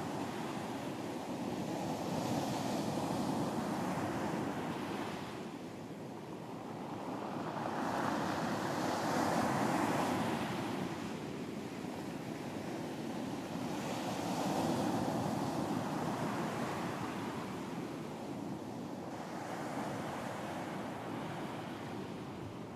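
Sea waves breaking and washing up on a beach, the surf swelling and fading four times, about every six seconds.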